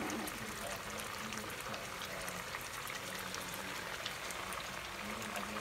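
Chicken pieces cooking in a honey-garlic sauce that is bubbling and sizzling, a steady crackle of many small pops.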